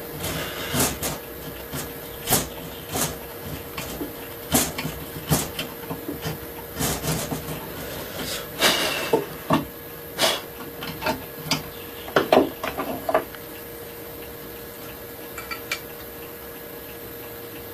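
Irregular sharp knocks and taps of hand tools on the wooden body of a plane being trimmed, a dozen or so in the first thirteen seconds, a few with a short ringing note, then only a faint steady hum.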